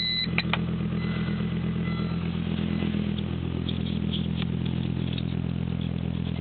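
1998 Volvo S70 T5's turbocharged 2.3-litre five-cylinder idling steadily through a 3-inch downpipe and cat-back exhaust. A short electronic beep sounds right at the start, and there is a click about half a second in.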